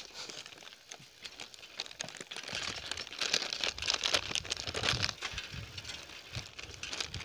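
Crinkling and crackling rustle close to the phone's microphone. About two and a half seconds in, a low rumble and hiss join it as the bicycle gets moving over a rough dirt track.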